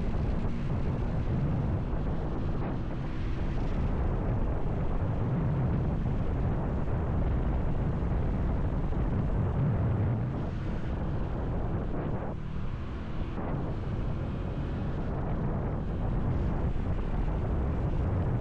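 Wind buffeting the microphone of a moving motorcycle: a steady low rumble, with the motorcycle's engine and road noise underneath.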